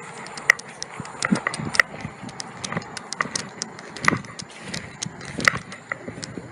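Irregular sharp clicks and knocks, a few each second, over a steady background hiss.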